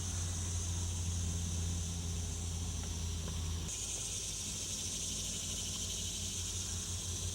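Steady low mechanical hum over an even, high insect-like drone; the hum drops away abruptly about three and a half seconds in, leaving the high drone.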